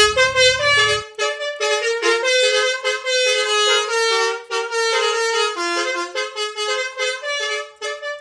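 Basuri V3 'telolet' musical bus horn being sounded as a test, playing a tune of quick stepping notes in a bright reedy tone.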